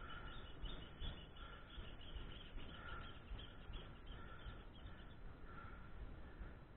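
Mountain bike rolling along an asphalt road: a steady low rumble of wind and tyre noise, with faint, repeated high chirps over it.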